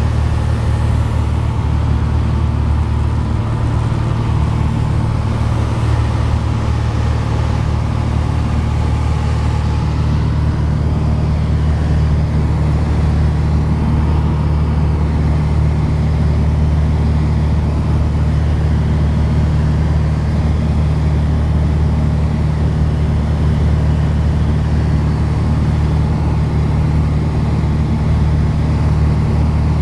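Single-engine Piper Dakota's six-cylinder Lycoming engine and propeller droning steadily in cruise flight, heard from inside the cabin.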